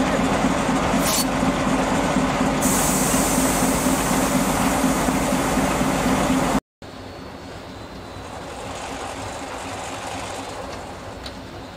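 Narrow-gauge diesel locomotive idling steadily, a low even hum. After a sudden cut about two-thirds of the way through, the idle is heard much quieter.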